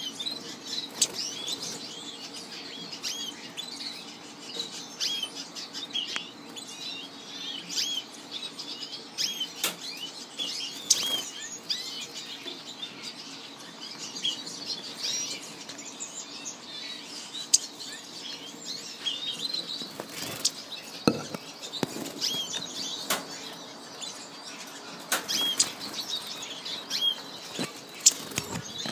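Juvenile orange-breasted buntings giving many short, high chirps, with occasional wing flutters and sharp knocks as the birds flit between perch and cage bars.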